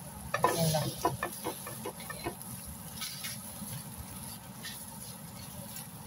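Egg frying in oil in a nonstick pan, sizzling steadily, while a silicone spatula scrapes and chops at it. There is a quick run of scraping taps in the first two seconds, then mostly the steady sizzle.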